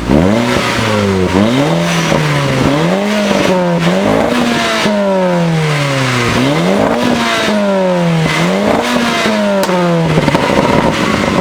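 Audi S3 8P's turbocharged 2.0 TFSI four-cylinder revving over and over, its pitch climbing and dropping about once a second. It runs through a 3-inch downpipe, a 200-cell sports catalytic converter and a 3-inch mid-pipe, with the stock S3 middle and rear silencers still fitted.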